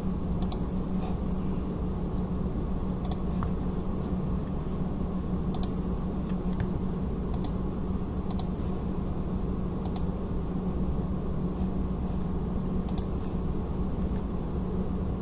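Computer mouse clicking now and then, about seven short sharp clicks, several heard as a quick double tick of press and release, over a steady low electrical hum and hiss from the recording.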